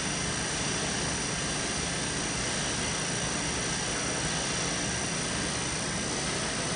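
Steady machinery noise of a wiped-film short path distillation unit in operation, its vacuum pumps and wiper-rotor drive running: an even, unbroken hum and rush with a faint high whine.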